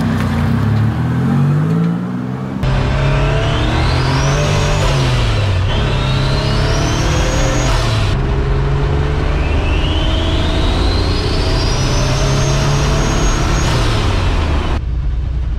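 Turbocharged 3800 Series II V6 in a 1974 Ford Courier accelerating hard under load, with the T70 turbocharger's whine climbing steeply in pitch three times as the engine pulls and shifts.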